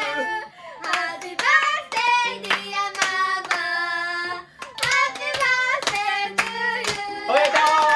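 Several voices singing a birthday song together, with notes held long, over steady rhythmic hand clapping of about two claps a second.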